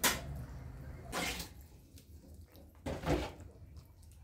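Spatula stirring a thick mushroom cream sauce in a pan: three short wet scraping strokes, at the start, about a second in, and about three seconds in.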